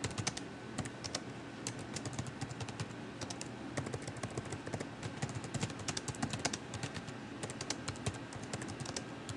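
Computer keyboard being typed on: a continuous run of quick, uneven key clicks as a sentence is typed out.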